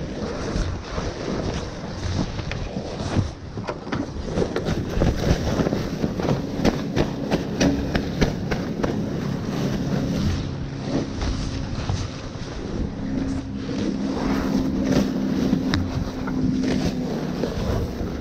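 Spinnaker cloth rustling and crackling as it is hauled in by hand and stuffed down a hatch, over wind buffeting the microphone. A steady low hum joins from about a third of the way in and holds nearly to the end.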